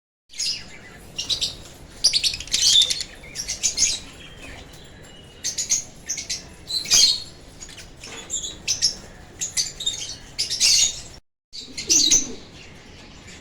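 Lovebirds chattering in bouts of rapid, high-pitched chirps and squeaks, with a brief break near the end.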